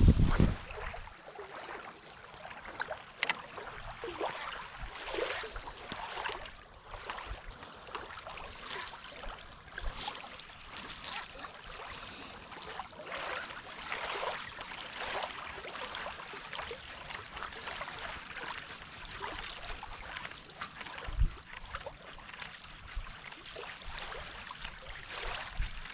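Small waves lapping on a gravel shoreline, a steady watery wash with scattered faint clicks. A loud low thump comes right at the start and a shorter one near the end.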